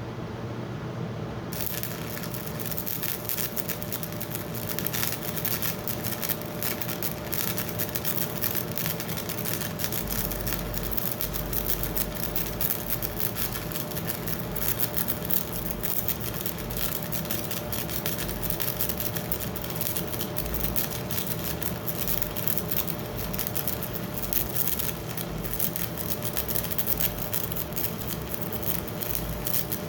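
Stick-welding arc on a 7018 rod crackling and sizzling steadily. It strikes about a second and a half in, over the steady hum of a Miller Econotwin welder, and runs on straight polarity.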